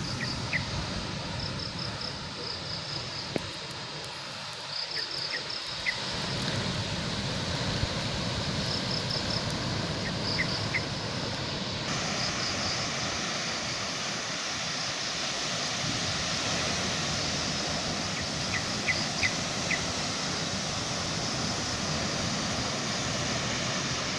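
Steady rushing outdoor noise with an insect chirping in short, high pulsed trills every few seconds.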